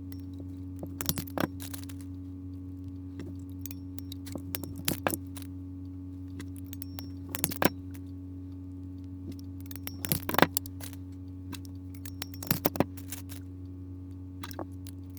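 Small metal clicks and snaps of female bullet connectors being fitted onto wire ends and crimped down, in scattered clusters, over a steady low hum.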